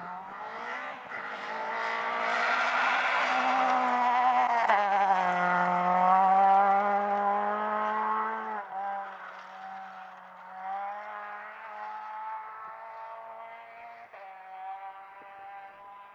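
Racing car engine passing by: it grows louder as it approaches, drops in pitch as it goes past about five seconds in, then fades away while still running.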